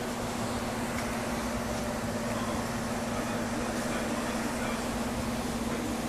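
Steady mechanical hum: a constant low drone with one level tone over a wash of noise, like a fan or machinery running.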